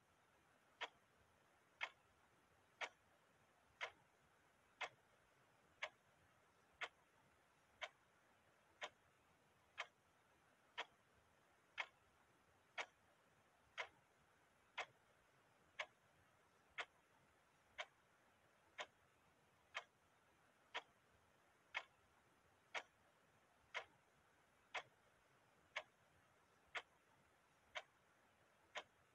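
Clock ticking steadily, one sharp tick a second.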